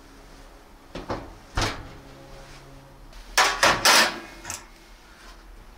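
Oven door and baking tray being handled: two light knocks, then a quick run of loud clanks about three and a half seconds in and a last knock shortly after.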